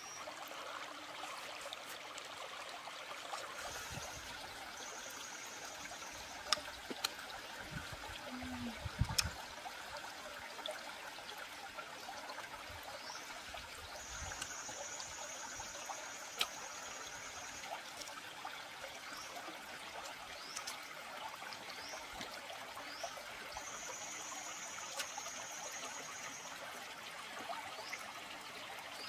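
Stream water trickling steadily. Over it a high, steady buzzing tone comes and goes in stretches of one to three seconds, with short rising chirps and a few sharp clicks.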